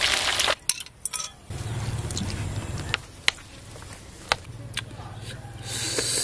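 A brief burst of sizzling from whole fish deep-frying in hot oil, then a few sharp clicks of a metal spoon against a ceramic bowl over a low hum.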